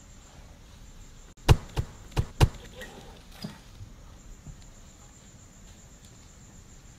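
A brief scuffle of a cat swiping at a dog, with the dog scrambling away on concrete steps: four sharp knocks in about a second, then a few lighter taps.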